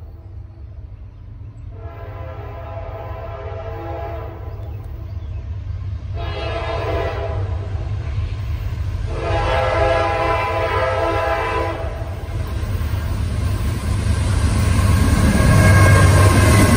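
Norfolk Southern freight locomotives approaching: the lead locomotive's horn sounds three long blasts over a rumble of diesel engines and wheels that grows steadily louder. Near the end, as the engines draw alongside, the horn tones slide slightly down in pitch.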